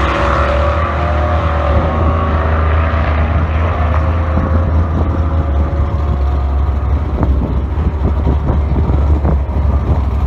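Engines of two drag-racing vehicles, one of them a 2004 Ford SVT Lightning pickup's supercharged V8, running at full throttle as they pull away down the strip, fading out over the first few seconds. A steady low rumble carries on after they are gone.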